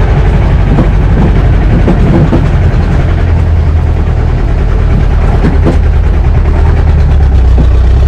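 Jeep engine running as it drives along a rough dirt track, heard from on board: a loud, steady low drone with scattered knocks and rattles from the bumps.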